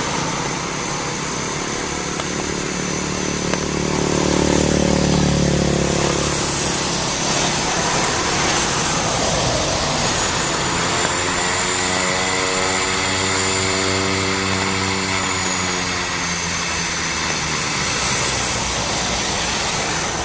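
Beechcraft King Air C90B's twin Pratt & Whitney PT6A turboprop engines running: a steady high turbine whine that rises slightly about halfway through, over a propeller drone that swells twice.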